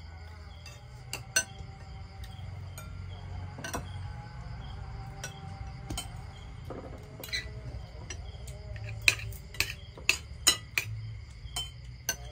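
Metal utensils and dishes clinking: a string of sharp knocks, each ringing briefly, that come faster and louder in the second half.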